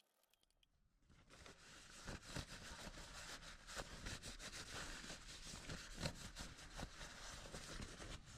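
Faint clicks and knocks from handling tools or parts over a steady hiss, starting about a second in after a stretch of dead silence.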